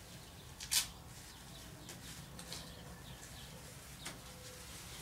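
Masking tape and plastic masking film being worked by hand: one short, sharp rip about a second in, then a few fainter crinkles.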